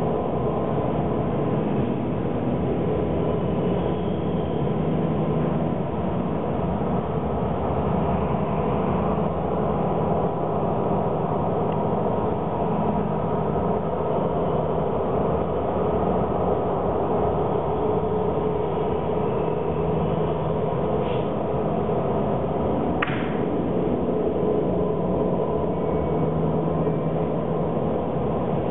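The video installation's soundtrack playing through the gallery speakers: a steady, dense droning hum of held low tones over a rumbling wash, with two faint ticks a couple of seconds apart near the end.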